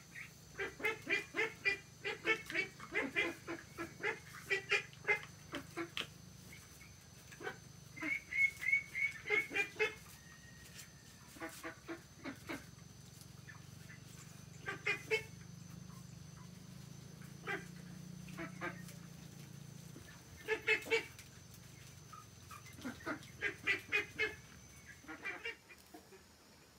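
Domestic waterfowl calling in quick runs of short honks, several runs with pauses between them; the longest and busiest run fills the first six seconds.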